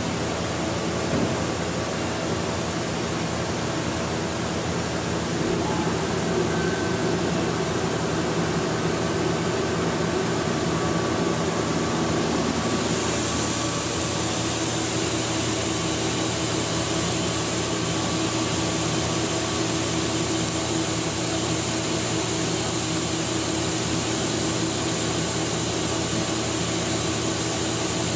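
Walter Helitronic Vision CNC tool grinder running its warm-up program: a steady machine hum with several steady tones. About halfway through, a high hiss comes in and holds.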